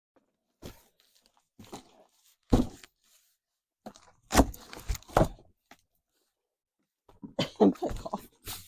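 Cardboard box and styrofoam packing being handled as a portable car fridge is tipped out of its box: a series of separate scrapes, crunches and thumps, with a busier stretch of handling near the end.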